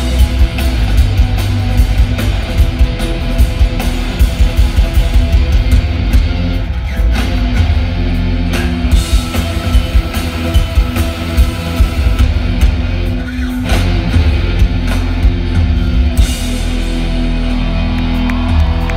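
Live rock band playing loud, with distorted electric guitars, bass guitar and drums. About 16 seconds in the drum hits stop and the guitars ring on in long held notes.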